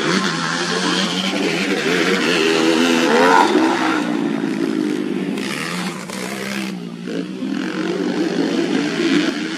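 Several dirt bike engines running hard in a race, revving up and down with throttle and gear changes, with a sharp rev rise about three seconds in.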